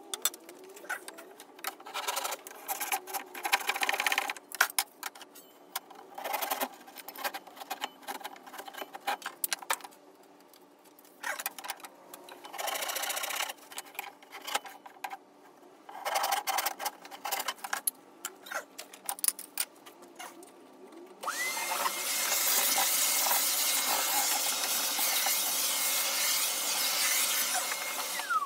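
Hand work on wooden parts, with scattered clicks, knocks and short scraping sounds. About 21 seconds in, an electric power tool starts, its motor quickly spinning up to a steady high whine. It runs evenly for about seven seconds and winds down at the very end.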